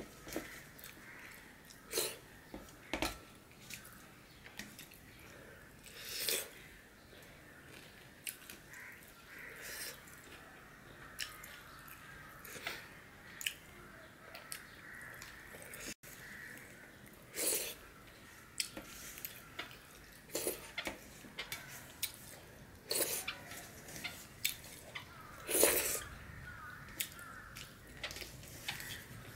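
Close-up eating sounds: wet chewing and lip smacks, with fingers mixing rice and curry on a steel plate. Irregular sharp clicks and squelches, a few louder ones scattered through.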